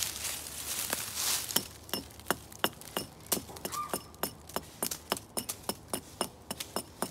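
Footsteps crunching through dry leaf litter on a forest floor, giving way to a run of sharp, irregular clicks and crackles from leaves and twigs underfoot. One brief short high note sounds near the middle.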